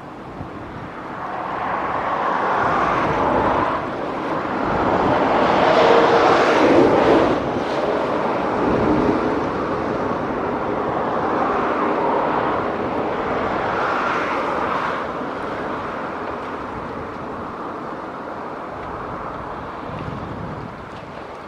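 A passing engine noise swelling to its loudest about six to seven seconds in, then slowly fading.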